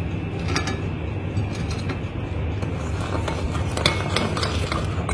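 A steady low background hum with a few light clinks and taps, one about half a second in and a small cluster between three and four seconds in.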